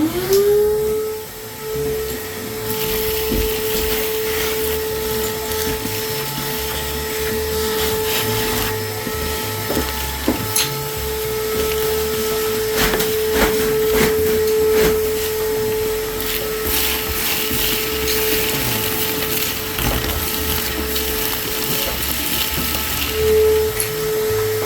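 Vacuum cleaner motor spinning up and then running steadily with a high whine while it sucks up demolition rubble and dust, with small pieces clicking and rattling as they go through.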